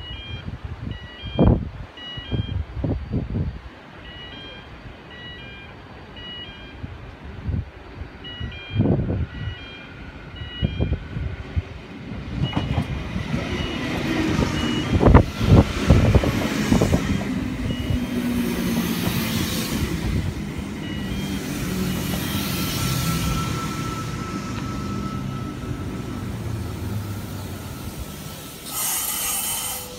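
Electric double-deck passenger train pulling into a platform: a low rumble of wheels and motors that builds from about twelve seconds in and stays loud as the carriages roll past, with a thin steady squeal in the later part as it slows. Before it arrives, a short electronic beep repeats over and over.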